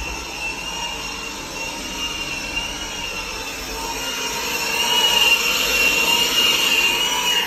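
A small electric motor running with a steady high whine over a hiss. The whine wavers slightly in pitch and gets louder from about four seconds in.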